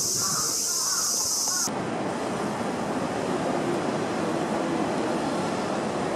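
Cicadas buzzing in a high, steady drone, cut off abruptly about two seconds in. They are replaced by a steady roar of city traffic.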